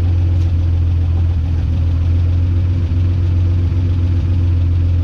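1946 Hudson Commodore Six's flathead straight-six engine idling steadily, with a strong low hum, on its first run after its head was removed and decarbonised for low compression.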